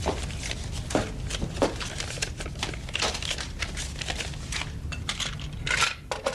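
Paper rustling and small clicks of money being handled at an open metal cash box, with a slightly louder clatter near the end, over a steady low hum.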